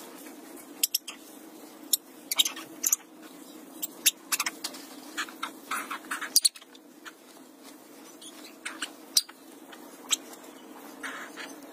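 Puppies playing: scattered short sharp squeaks and clicks at irregular intervals over a steady low hum.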